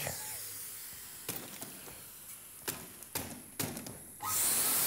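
Metal canister vacuum cleaner going off, its motor winding down, with several clicks and knocks as the machine is handled. It then starts up again with a steady hiss about four seconds in.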